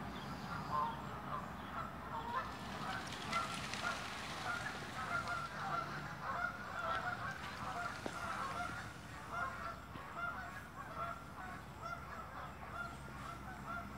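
A flock of geese honking repeatedly in flight, many short calls overlapping.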